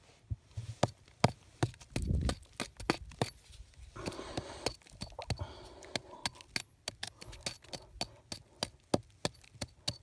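Rock pick tapping and chipping at a soft, decomposed basalt wall: a quick, irregular run of sharp taps, a few each second.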